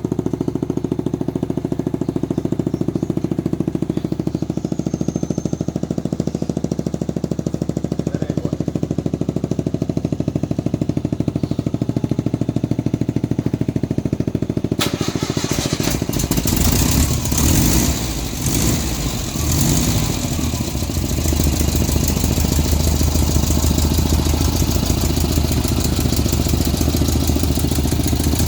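Small engine idling steadily with a fast, even firing. About halfway through, the sound suddenly turns louder and rougher, with uneven rises and falls in engine speed.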